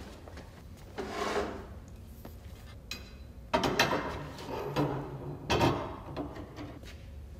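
A tall metal pole being handled and stood upright on a concrete floor: scraping with a few sharp knocks, one about a second in and louder ones around the middle and later on.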